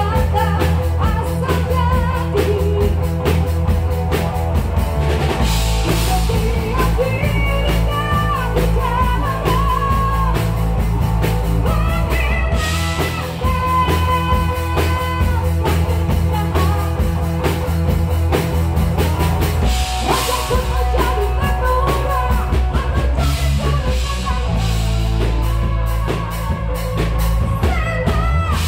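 A rock band playing live: singing over electric guitar, electric bass and a drum kit, loud and continuous.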